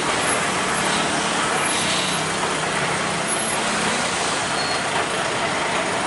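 A Hino tanker truck's diesel engine running as the truck passes slowly at close range, over steady road traffic noise.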